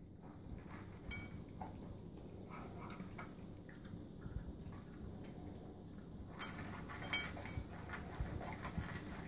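A dog and a cat eating together from one metal bowl: irregular chewing and small clicks of teeth and food against the bowl, busier from about six seconds in.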